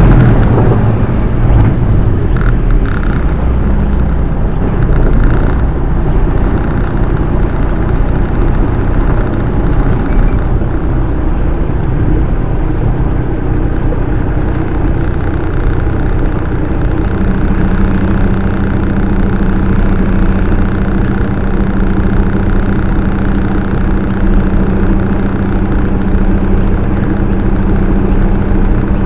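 Semi-trailer truck under way: steady diesel engine and road rumble, louder for the first moment. A steady droning note joins a little past halfway through.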